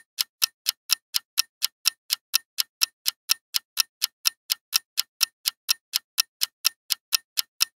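Countdown timer sound effect: steady clock-like ticking, about four sharp ticks a second.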